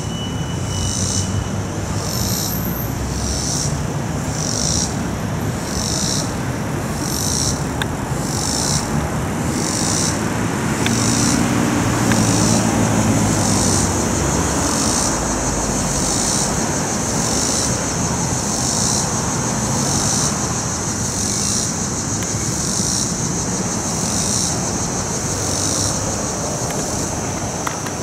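Robinson's cicada (Neotibicen robinsonianus) calling: a high buzz pulsing about once every three-quarters of a second, which runs together into one steady buzz a little past halfway. A low rumble sits under it throughout.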